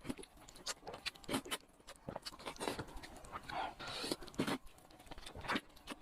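Close-up eating sounds: wet chewing and lip smacks in an irregular patter, with a longer slurp about three and a half seconds in.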